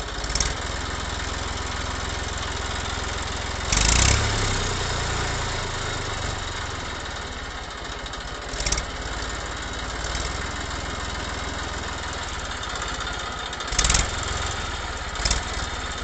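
Tractor engine idling with a steady low chugging, broken by a few short louder bursts of noise, the biggest about four seconds in and another near fourteen seconds.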